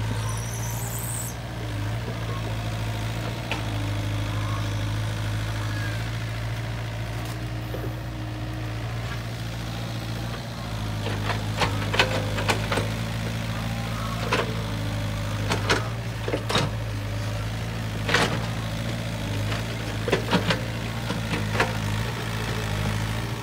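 Hitachi mini excavator's diesel engine running steadily while it works in mud. In the second half it is broken by a series of short, sharp metallic clanks from the machine.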